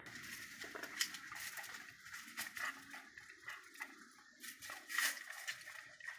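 Dog eating, with irregular wet smacks and clicks of chewing or lapping.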